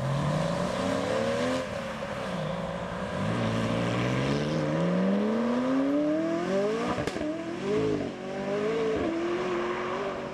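Sports cars accelerating hard away one after another. A Porsche 911 pulls off first and changes up about one and a half seconds in. Then a McLaren's twin-turbo V8 revs up in one long rising pull lasting about four seconds, gives a sharp crack as it changes up about seven seconds in, and shifts again as it goes.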